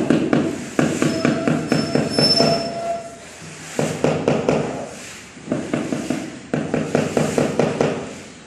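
Hand scraping and scrubbing across a marble floor slab: rapid scraping strokes in about four bouts, each starting sharply and fading off.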